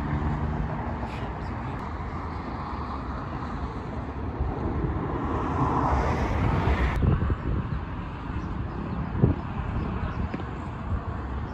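Outdoor city ambience: a steady rumble of freeway traffic. It swells around six seconds and drops off abruptly near seven seconds.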